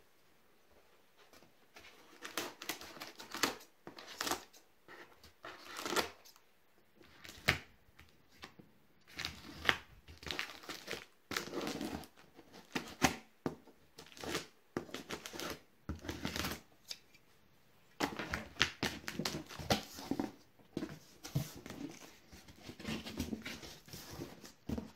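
Scissors cutting and tearing the packing tape on a cardboard shipping box, then the box flaps being opened and the cardboard handled, in irregular bursts that begin about two seconds in.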